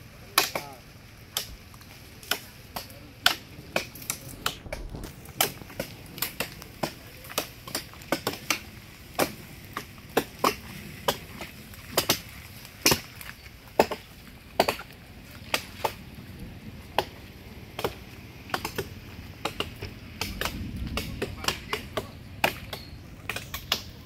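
Machetes (parang) chopping into the green branches of a fallen tree: sharp, irregular blade strikes on wood, about one or two a second.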